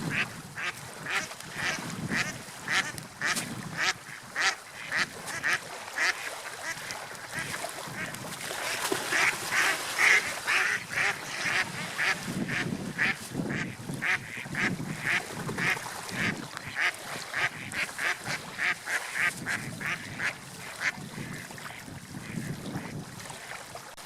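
Bird calls, short and repeated about two a second, continuing throughout over a steady hiss of wind and water.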